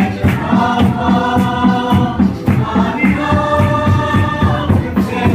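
A group of voices singing a gospel hymn together in held notes, over a steady, quick drum beat.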